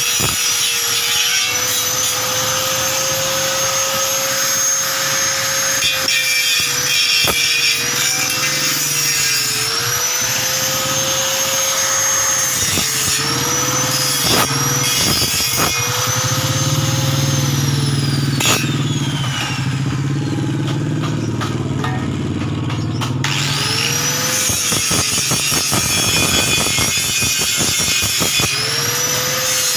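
An electric motor-driven tool running, its pitch dipping again and again as it is loaded, over a continuous scraping, grinding noise of material being worked.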